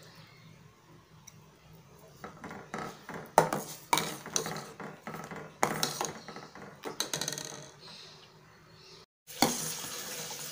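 Steel ladle stirring sago cooking in milk in a stainless steel pot, scraping and clinking against the pot with scattered knocks in the middle. After a brief break near the end, a steady hiss from the hot pot.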